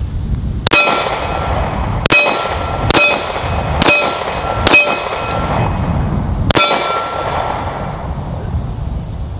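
Six shots from a Kahr CM9 9mm pocket pistol, each hit answered by the ringing clang of a steel target. The shots fall roughly a second apart, with a longer gap before the sixth, and its ring fades out over the following second or so.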